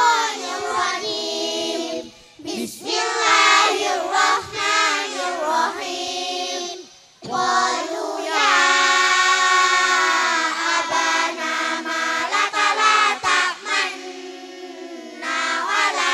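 A group of girls singing a melodic chant in unison into handheld microphones, in long phrases with held notes and short pauses for breath about two and seven seconds in.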